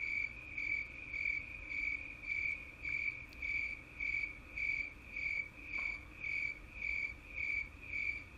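Recording of a green lacewing's courtship song: a high, buzzing insect chirp repeated evenly, a little under two chirps a second. Such calls are so species-specific that they are the only way to tell some lacewing species apart.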